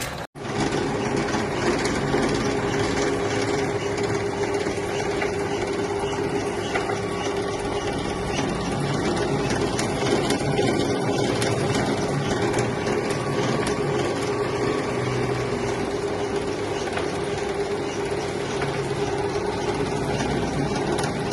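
Electric dough-rolling machine running steadily, its motor humming and rollers turning with fine rapid clicking as dough is fed through.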